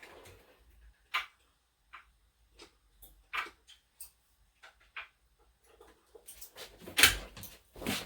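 Scattered light clicks and knocks of small hand tools being handled, sparse at first and coming more often over the last two seconds.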